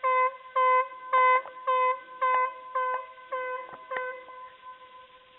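Blasting warning horn sounding a rapid series of short blasts, about two a second, the pre-shot warning signal before the explosives are fired. The blasts grow fainter toward the end, leaving a faint lingering tone.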